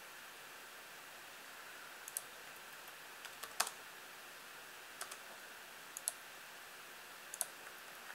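Computer keyboard keystrokes and mouse clicks: about a dozen short, sharp clicks, scattered and some in quick pairs, starting about two seconds in, over a faint steady hiss.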